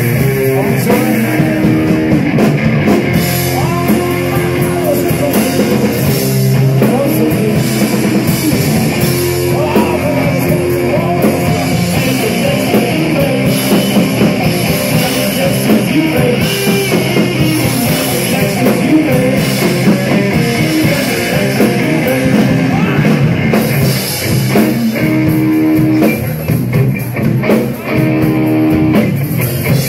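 Live blues-psychedelic rock trio playing loudly: electric guitar and drum kit.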